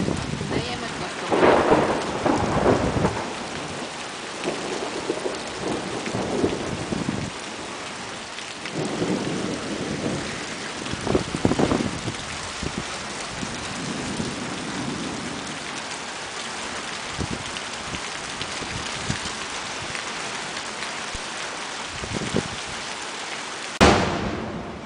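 Thunderstorm: steady rain with rolls of thunder, loudest a little after the start and again about ten seconds in. Shortly before the end it stops abruptly with a click.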